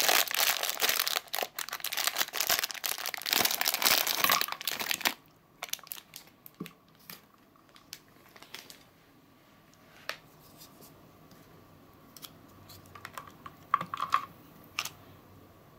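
Thin plastic packaging bag crinkling and rustling as the toy turtles are handled and taken out of it, stopping about five seconds in. After that only faint scattered clicks and light taps, a few of them close together near the end as a plastic ladle is worked in the water.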